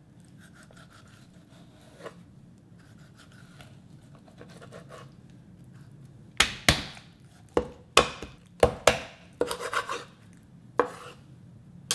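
Kitchen knife cutting through a bone-in chicken breast on a wooden cutting board. A few seconds of faint slicing are followed, from about halfway in, by about ten sharp chopping knocks of the blade against the board.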